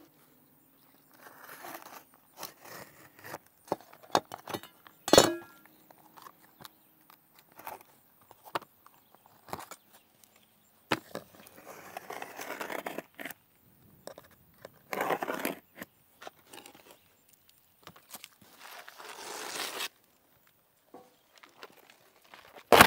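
Roofing work with asphalt shingles: scattered handling clicks and knocks, a sharp knock with a brief ring about five seconds in, and several second-long scraping passes, one of them a utility knife scoring a shingle against a square.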